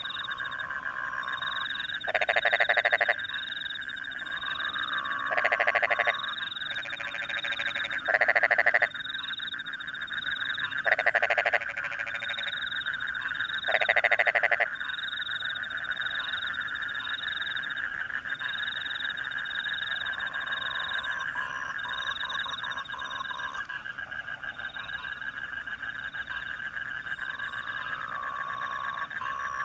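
Rice-paddy frogs croaking in chorus, with five loud close bouts of croaking in the first half, over a steady trill and a regular high chirping of about two a second, from crickets.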